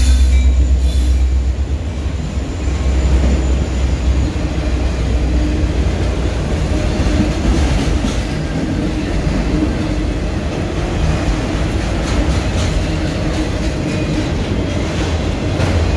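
CN freight train of enclosed autorack cars rolling past close by, a steady rumble of wheels on rail with occasional clacks. A deep engine drone from the just-passed locomotive fades over the first few seconds.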